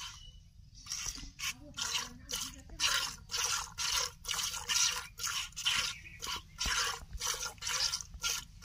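Cow being milked by hand: short hissing squirts of milk streaming into a plastic bucket, about two a second in a steady rhythm, starting about a second in.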